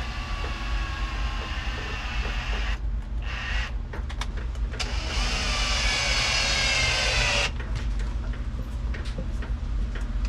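Electric drill-driver motor whining in spurts as screws are driven, with short stops between runs and its longest, loudest run about halfway through. A steady low hum lies under it.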